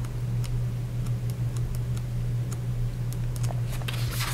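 Pages of a small paperback guidebook being flipped through by hand: light, irregular ticks of paper, over a steady low hum.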